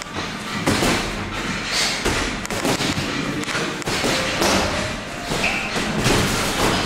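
Boxing gloves thudding as punches land during sparring: several irregular thumps over the background noise of a gym.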